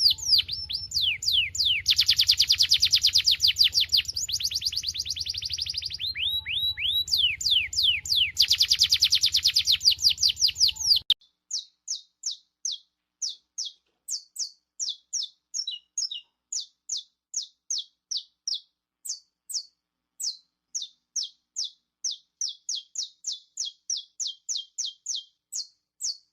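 Two songbirds singing one after the other, a saffron finch (canário-da-terra) and a domestic Belgian canary. First come about eleven seconds of dense, fast, continuous trills of down-sweeping notes over a low hum. Then a sudden cut brings separate quick down-sweeping notes, a few each second, with short pauses between them.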